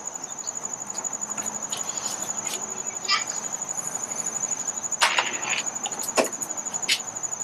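Insects trilling steadily in a rapid, even, high-pitched pulse. Over it come a few sharp clicks and knocks of hood-latch hardware being handled; the loudest are about five and six seconds in.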